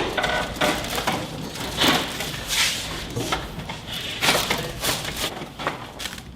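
Chiropractic spinal adjustment: a string of short, sharp cracks and pops from spinal joints being manipulated, spread through the whole stretch.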